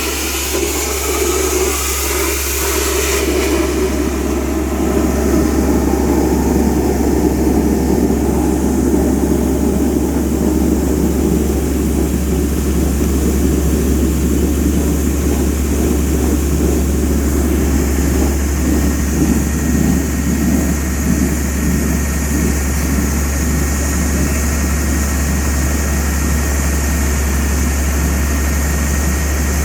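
Borewell-cleaning air compressor running steadily: a deep constant hum with a rough rushing noise over it. A high hiss drops away about three seconds in.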